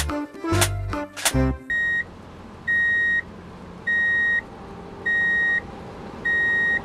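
Background music stops about a second and a half in, and a reversing-alarm beeping begins: a single electronic tone, each beep about half a second long, five times at about one beep every 1.2 seconds.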